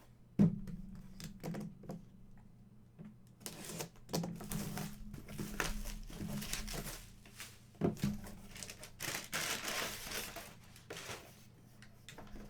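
Packaging crinkling and rustling as it is handled and opened, in two stretches, with a sharp knock about half a second in and another about eight seconds in.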